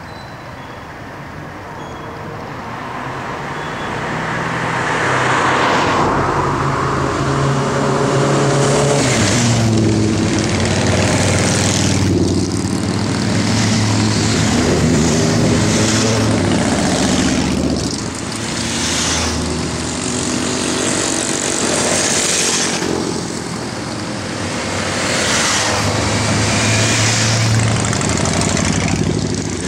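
A line of motorcycles riding past one after another, each engine rising and fading as it goes by. The first arrive about five seconds in.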